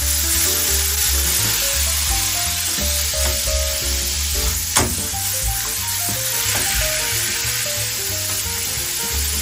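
Octopus slices, garlic and a rosemary sprig frying in olive oil in an aluminium pan: a steady sizzling hiss, with one sharp click about halfway through. Soft background music plays underneath.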